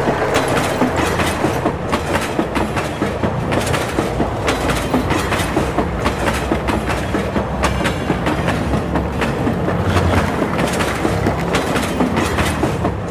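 Train running with a steady, continuous clatter of wheels on track.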